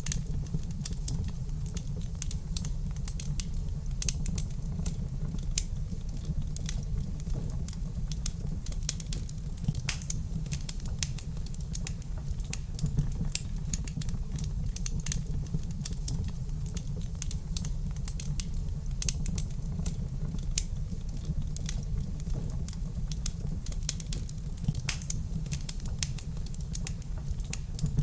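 Wood fire crackling in a fireplace: many small, irregular pops and snaps over a steady low rumble.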